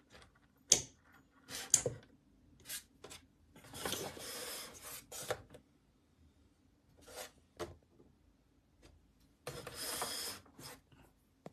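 Handling noise: intermittent rubbing and scraping, with a couple of sharp clicks in the first two seconds and two longer scrapes of about a second each, in the middle and near the end.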